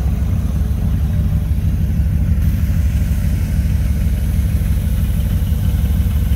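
1969 Chevrolet Corvette Stingray's V8 engine idling steadily at a low, even pitch.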